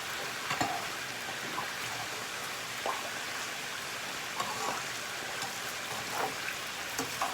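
Squid and onion sizzling steadily as they are stir-fried in a pan, with a few light scrapes and taps of the spatula against the pan.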